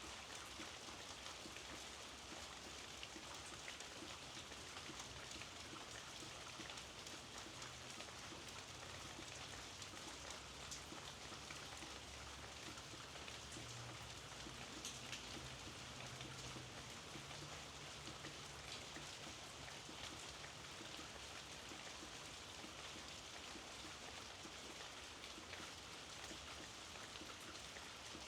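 Steady rain falling in a quiet neighbourhood: a soft, even hiss with a dense patter of individual drops.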